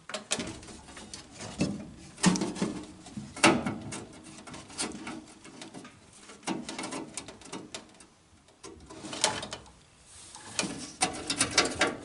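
Hand tool working the single sheet-metal screw that holds a gas furnace's flame sensor, loosening it: irregular metal clicks and scrapes against the burner assembly, with a quick run of clicks near the end.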